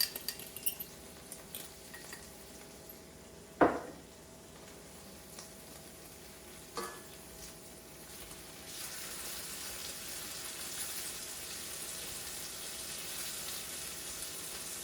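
Light clinks of a utensil against a bowl, a single loud knock about four seconds in, then, from about nine seconds in, chicken browning in a hot pan sizzling steadily.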